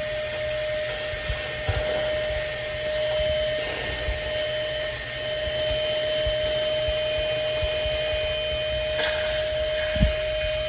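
Vacuum cleaner running steadily with a constant whine, sucking oil out of the engine valley of a Jeep 3.6 L V6 through a small hose. There are a few light knocks, and a single sharp thump about ten seconds in.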